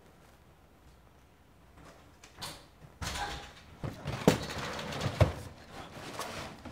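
Handling noise of a plastic storage tub being set down while moving in: rustling, then clatter from about three seconds in, with sharp knocks a little after four and five seconds.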